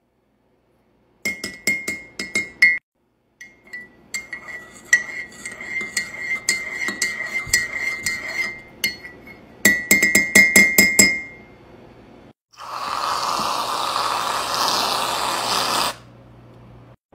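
A metal spoon stirring in a ceramic mug, clinking rapidly against its sides so the mug rings, in two spells. About twelve seconds in, an aerosol can of whipped cream sprays with a steady hiss for about three and a half seconds, then stops suddenly.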